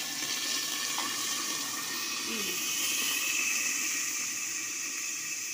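Onions frying in hot oil in a covered aluminium pot: a steady sizzling hiss, the onions already browned.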